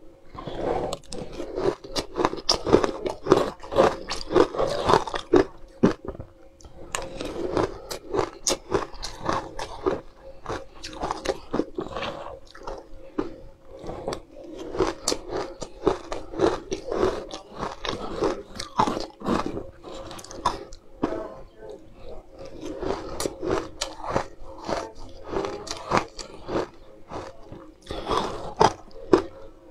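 A person crunching and chewing mouthfuls of frozen green-juice ice flakes: dense runs of sharp, brittle crunches with short pauses between spoonfuls.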